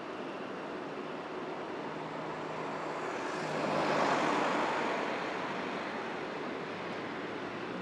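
Street traffic noise from a car waiting in city traffic: a steady hum of engines and tyres, with one passing vehicle swelling up and fading away about four seconds in.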